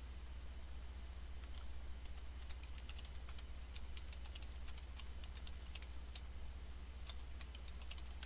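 Computer keyboard being typed in short runs of key clicks with pauses between them, over a steady low hum.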